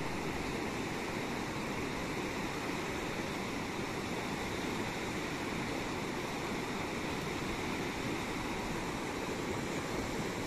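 Steady rushing of a fast mountain river running over rapids and stones: an even wash of water noise.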